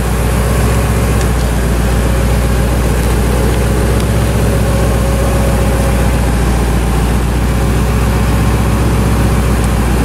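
A vehicle engine idling steadily with an even low rumble, most likely the pickup supplying a jump start. The backhoe's own engine is not cranking.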